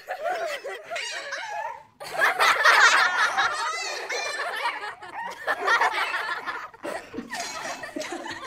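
People laughing, with a puppy barking from about two seconds in.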